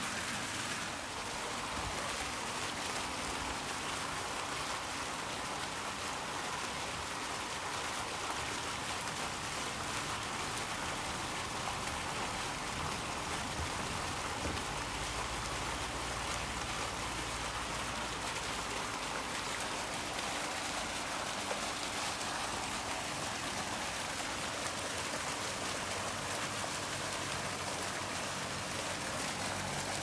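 Fountain jets splashing steadily into a shallow basin: a continuous patter of falling water.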